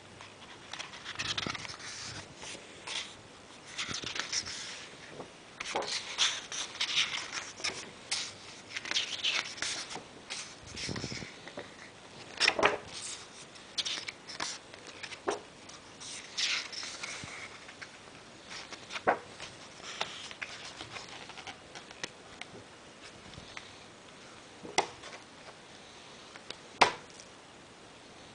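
Pages of a large hardcover art book being handled and turned: irregular paper rustling and sliding, with scattered sharp clicks and taps, the sharpest near the end.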